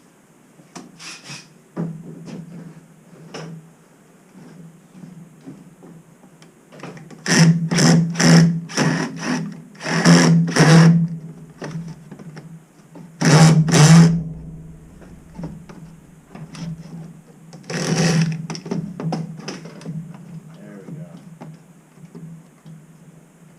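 Cordless drill/driver running in short bursts, four times, backing out or driving screws on a shower valve's mounting plate, over a faint steady hum.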